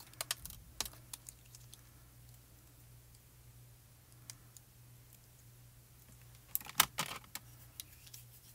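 Small sharp plastic clicks and rattles from fingers handling a clear plastic action wobbler and its backing. A few come near the start and a louder cluster comes about seven seconds in, over a faint steady low hum.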